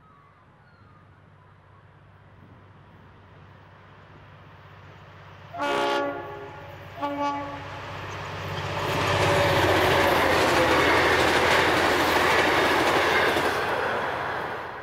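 V/Line N class diesel locomotive hauling passenger carriages: its engine grows louder on approach, then it sounds its horn twice, a blast about six seconds in and a shorter one a second later. From about nine seconds in the train passes close by, loud and steady, then cuts off suddenly at the end.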